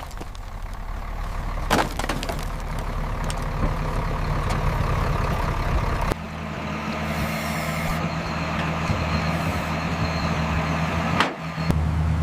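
A car engine running with a steady low drone. Its sound changes about halfway through. Sharp knocks come about two seconds in and again near the end.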